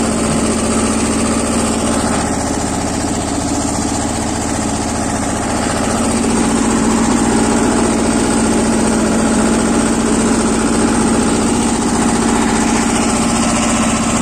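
The Lombardini 5LD-825-2 air-cooled two-cylinder diesel of a BJR F 3800 compact tractor running steadily under way, heard from the driver's seat, a little louder from about six seconds in.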